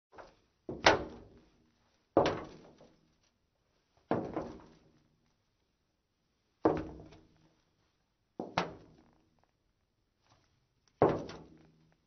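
Slow footsteps of women's heeled shoes on metal: six sharp clacks about two seconds apart, several with a quick heel-then-toe double hit, each dying away over about half a second.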